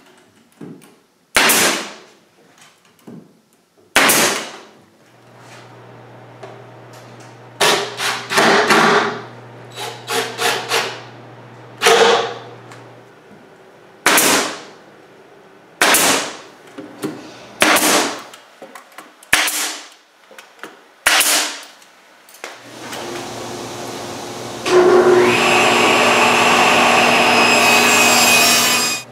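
A pneumatic nailer firing single shots into a plywood cabinet, each a sharp crack that fades quickly, about fifteen over the first twenty seconds. Then a table saw runs and cuts plywood, loud and steady over the last few seconds.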